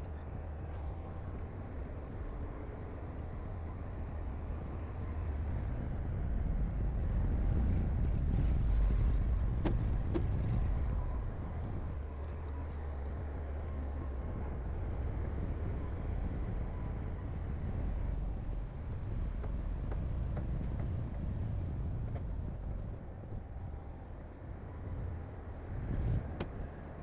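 Heavy earthmoving machinery running, a steady low diesel rumble that swells louder about a third of the way in and eases back, with a few short knocks.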